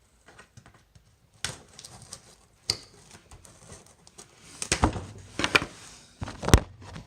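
A cardboard box being worked open by hand: irregular scrapes, rustles and knocks, sparse at first and busier and louder in the second half, with the sharpest knock near the end.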